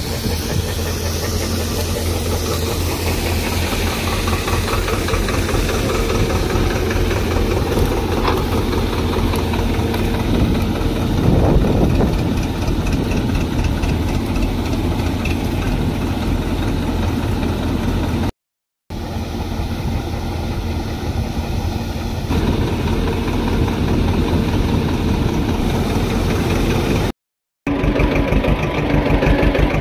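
Diesel farm engines running steadily: a Kartar 4000 combine harvester unloading grain into a tractor trolley, with a Swaraj 724 XM Orchard tractor idling alongside. The sound breaks off briefly twice, and near the end the tractor's engine is heard from its own seat.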